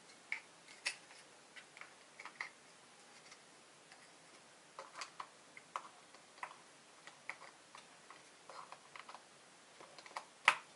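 Small plastic clicks and taps of a gimbal protector being worked onto a DJI Mavic Pro's camera gimbal, scattered irregularly, with one sharper click near the end as it seats.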